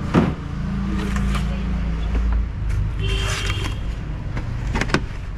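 A motor vehicle engine running steadily, with a sharp knock just after the start and another near the end.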